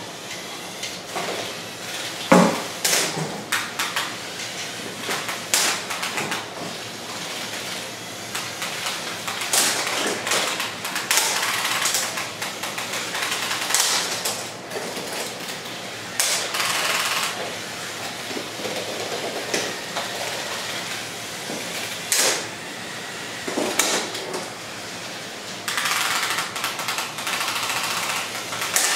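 Lego combat robots with spinning weapons fighting: small electric motors whirring as the weapons spin up, with repeated plastic clattering and knocks as the robots collide. The hardest knock comes about two seconds in.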